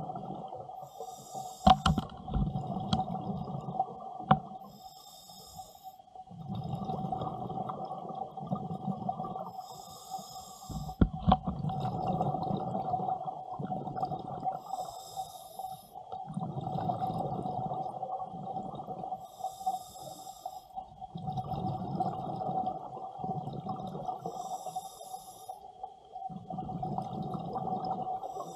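Scuba diver breathing through a regulator underwater: a short hiss on each inhale, then a few seconds of rumbling exhaust bubbles, about every five seconds. A steady faint hum runs underneath, and a few sharp knocks come in the first few seconds and once more about eleven seconds in.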